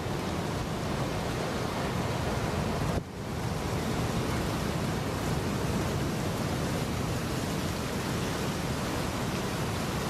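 Steady, even rushing noise with no bird calls; it drops briefly about three seconds in.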